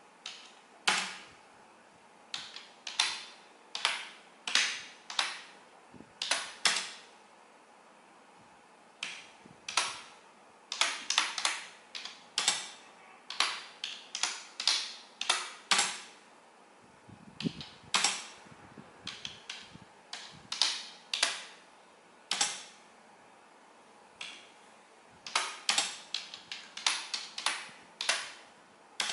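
Keystrokes on a computer keyboard: sharp, irregular clicks, some single and some in quick runs of several keys, with short pauses between words.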